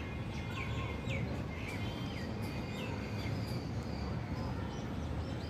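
Several short downward-sliding bird chirps over a steady low background rumble.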